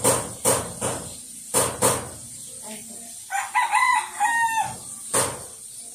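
A rooster crows once in the middle, a call of about a second and a half with a few breaks in pitch. Sharp taps come in a quick run near the start and once more near the end.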